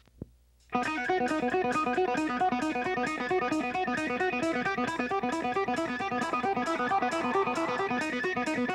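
Soundtrack music: after a brief near-silent gap, a fast, evenly repeated riff of plucked string notes starts about a second in and keeps going.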